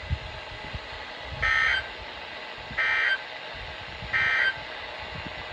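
Emergency Alert System end-of-message data bursts: three short, identical digital squawks about 1.4 seconds apart over steady radio hiss. They mark the end of the severe thunderstorm warning broadcast.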